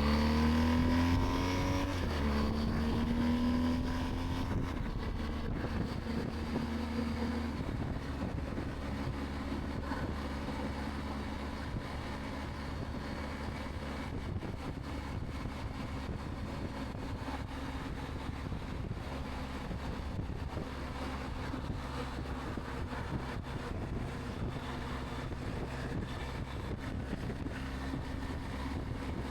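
Wind rush and the BMW R 1250 GS boxer-twin engine, heard from a microphone at the rider's ear inside a Sedici Sistema II modular helmet. The engine note climbs, steps down at a gear change about two seconds in, and climbs again. From about seven seconds on it settles into a steady highway cruise near 65 mph, with constant wind noise.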